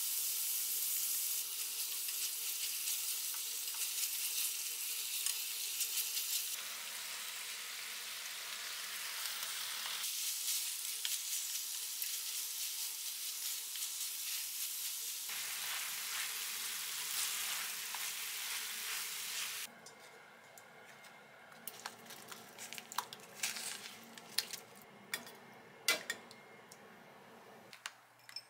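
Sliced pork and cabbage sizzling steadily in a frying pan as they are stir-fried with a wooden spatula. About two-thirds of the way through the sizzle stops and gives way to scattered light taps and clicks.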